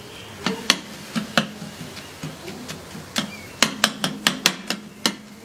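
Metal spatulas tapping and scraping on a large tawa griddle as minced meat is spread out over it: scattered clacks, then a quick run of about ten near the end, over a faint sizzle.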